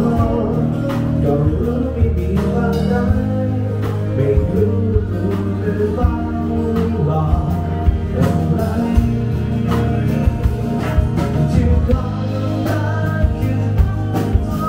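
Music with singing over a steady drum beat and bass.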